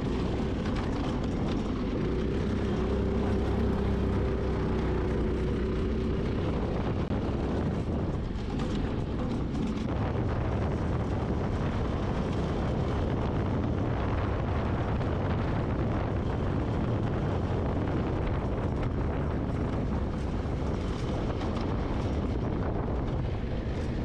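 Mini buggy's 196cc single-cylinder OHV engine running steadily under load as the buggy is driven along a dirt track, with road and wind noise.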